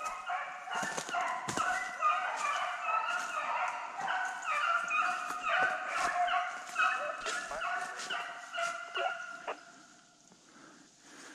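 A pack of deer hounds baying and yelping, many voices overlapping as they run a deer. The cry breaks off about a second and a half before the end.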